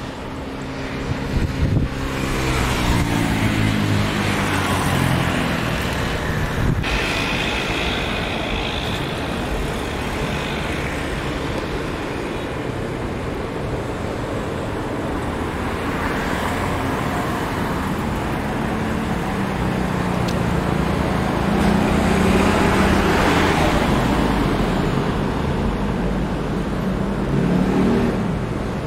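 Steady outdoor engine rumble and hiss, with a falling-pitched whine as something passes in the first few seconds and a swell in level about two-thirds of the way through.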